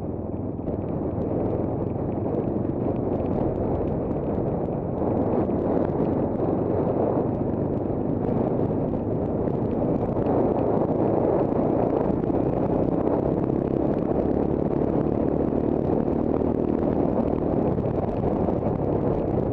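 Monkey bike's small single-cylinder engine running steadily at cruising speed, mixed with wind rushing over the camera microphone.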